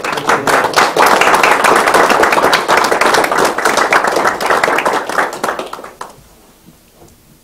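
A small audience applauding, the clapping dying away about six seconds in.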